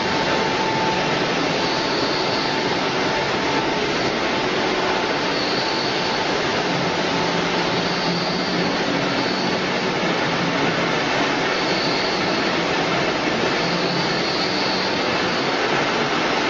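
Steady, even machine noise of a running french fries production line, a hiss and hum of motors, conveyors and water in the processing tanks.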